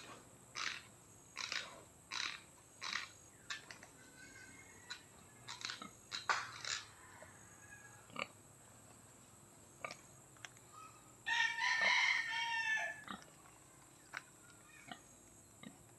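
Native boar champing its jaws: sharp tooth clacks about every two thirds of a second that thin out after a few seconds, the sign of an angry boar whetting its tusks. About eleven seconds in, a rooster crows once, the loudest sound.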